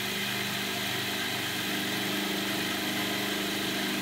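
Food processor motor running steadily, blitzing crushed ginger nut biscuits with melted butter into a crumb.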